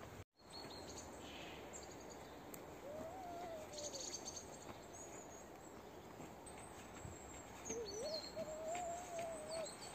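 An owl hooting: two long, wavering hoots, a shorter one about three seconds in and a longer one near the end, with faint songbird chirps in the background.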